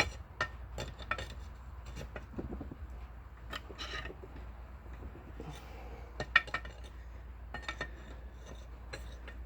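Irregular metallic clinks and taps of hand tools on steel, with one sharper clink about six seconds in, over a low steady hum.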